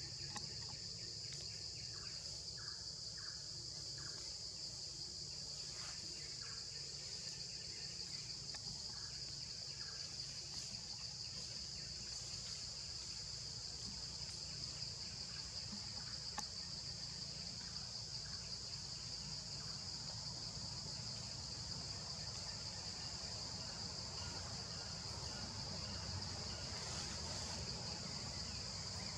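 Steady insect chorus: an even, high-pitched drone that holds without a break, over a low rumble of background noise. A few faint short chirps come about two to three seconds in.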